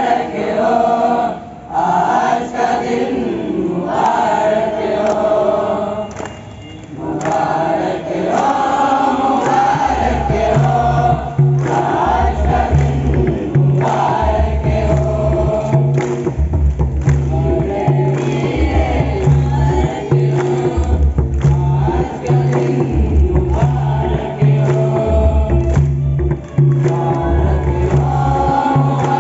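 A large group of school students and teachers singing a song together in chorus. About ten seconds in, a low bass beat joins and pulses roughly every one and a half seconds under the voices.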